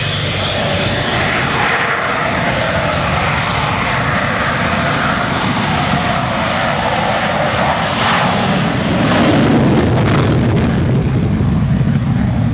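Aircraft engine noise from an aircraft passing, the pitch falling as it goes by, followed by a steadier, heavier rumble.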